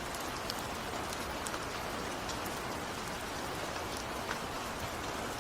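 Steady rain falling, an even patter with scattered faint drop ticks.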